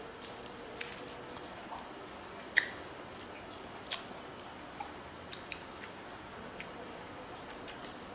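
Eating by hand: scattered sharp clicks and soft wet smacks as fingers mix rice on a metal plate and the mouth chews, with one louder click about two and a half seconds in, over a faint steady hiss.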